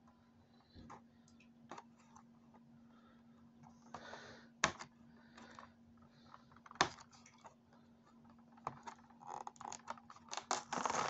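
Light clicks and taps from a cardboard toy-car box with a plastic window being handled, with a few brief rustles, then denser rustling and scraping of the packaging from about nine seconds in as it is opened. A faint steady hum lies underneath.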